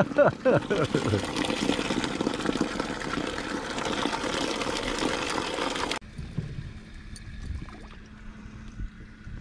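Water pouring out of a mesh fish weigh bag and splashing onto asphalt, a steady hiss that stops abruptly about six seconds in. A few light knocks follow.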